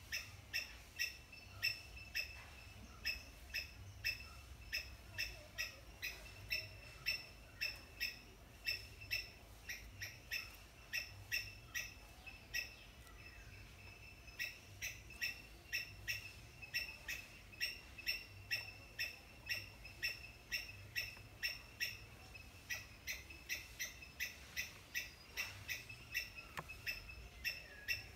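A short, high chirp repeated steadily, about two to three times a second, like an animal's rhythmic call.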